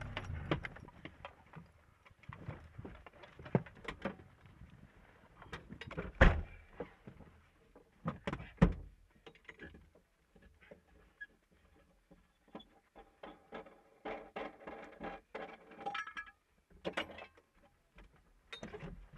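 A rally car's engine note dies away just after the start. Scattered knocks, clunks and rattles follow in and around the car, the loudest about six and eight and a half seconds in, as the crew get out and handle equipment to change a punctured wheel.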